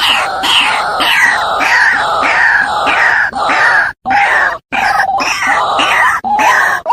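White-breasted waterhen calls played as a trapping lure: loud, harsh notes repeating about twice a second, with two brief breaks about four seconds in.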